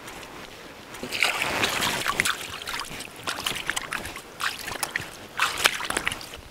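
Water splashing and sloshing in irregular bursts, with a loud rush starting about a second in and another short splash about five and a half seconds in.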